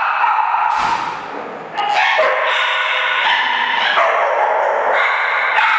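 Several dogs yipping and whining as they play tug-of-war over a rope toy, with a brief lull about a second in.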